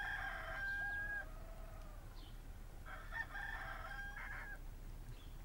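A rooster crowing twice. The first crow runs from the start and ends about a second in; the second, a little over a second long, comes about three seconds in.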